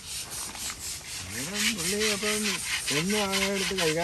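Rhythmic scrubbing of an elephant's hide as it is washed, about five rough strokes a second. Over it a man's voice holds two long, drawn-out notes, one starting just after a second in and the other about three seconds in.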